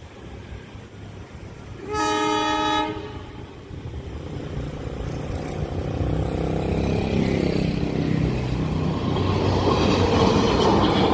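Train horn sounds one short blast about two seconds in. Then the rumble of the approaching train builds steadily, growing louder toward the end.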